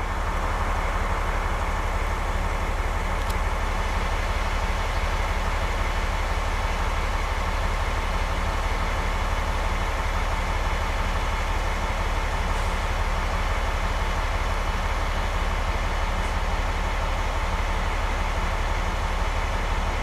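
DB class 218 diesel-hydraulic locomotive idling at a standstill: a steady, even engine run.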